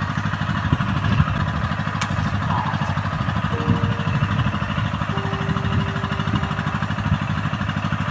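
A small engine idling steadily nearby, with a rapid, even putter that does not change.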